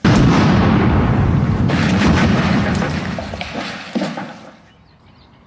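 A big explosion goes off suddenly and dies away over about four seconds, with a sharp crack near the end.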